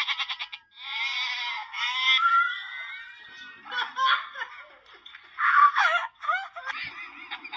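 Laughter and high-pitched squeals from a funny-animal video clip playing through a tablet's small speaker, thin with no bass.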